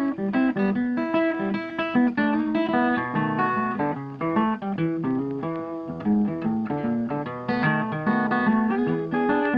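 Background music played on guitar: a continuous run of plucked notes.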